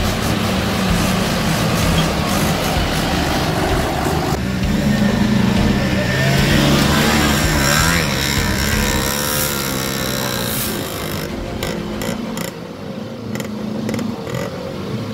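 Motor vehicle engines running as they push through deep mud: first a motorcycle and a tractor, then an auto-rickshaw and an SUV. The sound changes abruptly about four seconds in.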